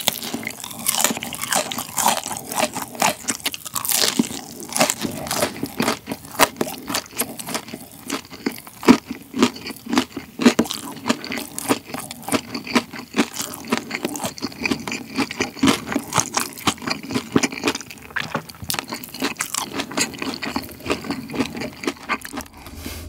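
Close-miked eating of a crispy hash brown waffle with bacon and cheese: a bite near the start, then steady crunchy chewing with many quick crackles.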